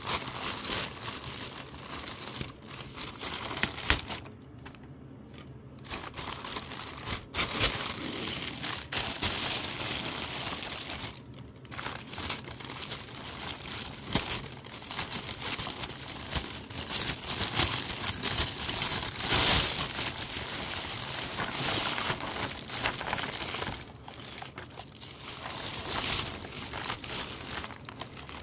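Thin plastic carrier bag crinkling and rustling as it is handled and pulled open, in irregular bursts with brief pauses about five seconds in and near twelve seconds.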